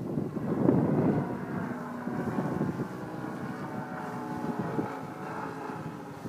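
Saito 100 four-stroke glow engine of an RC model plane running in flight, its pitch drifting slightly as the plane moves and throttles. Gusty wind buffets the microphone, strongest about a second in.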